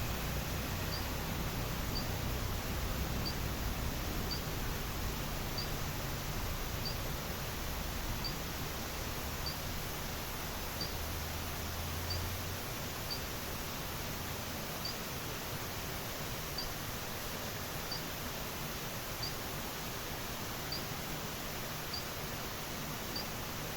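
Natural outdoor ambience: a steady hiss with a short, high chirp from a small animal repeating about once a second, and a low rumble that fades out about halfway through.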